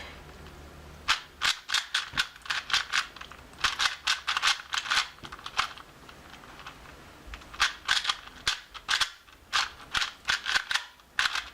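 Cyclone Boys 2x2x2 speed cube turned quickly by hand: bursts of rapid plastic clicks as the layers snap round, with a pause of a second or so midway. The cube is loosely tensioned and fast-turning.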